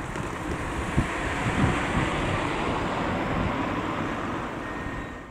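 Cars driving across a level crossing, with wind buffeting the microphone; a single thump about a second in. The sound fades out near the end.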